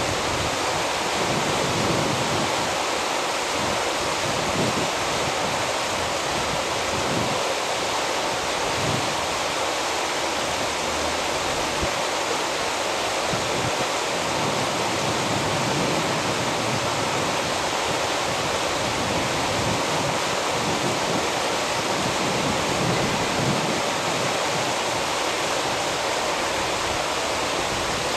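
Churning surf water rushing in a steady, even roar of noise, with no pauses or distinct knocks.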